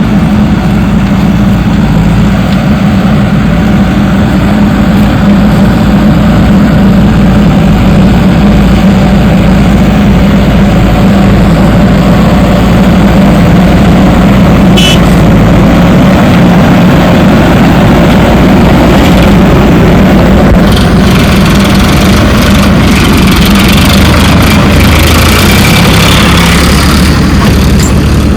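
Heavy diesel machinery engine running steadily. A deeper engine note and more hiss join in during the last few seconds.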